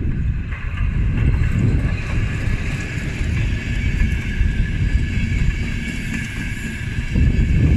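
A passing train, a loud low rumble with wind buffeting the microphone and a steady high-pitched whine above it.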